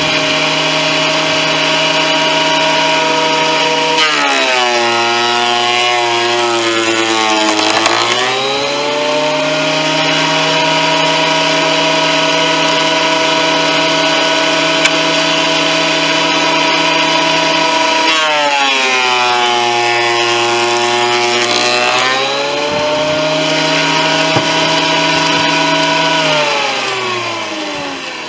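Performax 15-amp, 12-1/2-inch benchtop thickness planer running, its motor dropping in pitch and labouring as a board feeds through the cutterhead, twice, each time recovering once the board clears. Near the end it is switched off and winds down.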